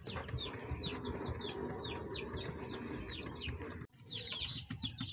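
Small birds chirping over and over: short, high, downward-slurred chirps, a couple each second, with a brief dropout a little before the end.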